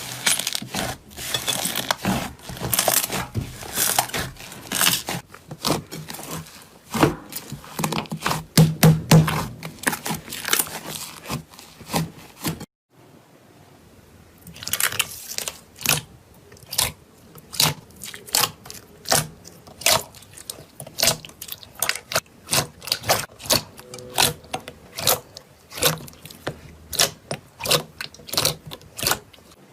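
Slime being squeezed and poked by hand: dense crackling for the first dozen seconds, then, after a sudden break, a steady series of sharp clicks and pops about two a second.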